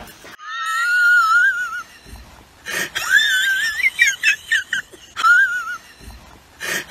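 A woman's high-pitched, wheezing laughter, held back behind her hand, in several long wavering bouts.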